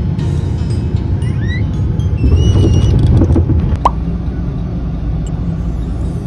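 Low rumble inside an airliner cabin as the jet rolls out on the runway after landing, louder for a moment near the middle. About four seconds in it gives way to the steady, slightly quieter road noise inside a moving car.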